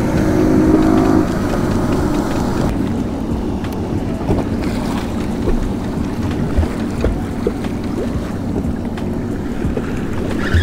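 Passing motorboats and the choppy water of their wake rocking a drifting waverunner, with wind on the microphone. A steady engine hum is clearest in the first second or so, then blends into the noise of water and wind.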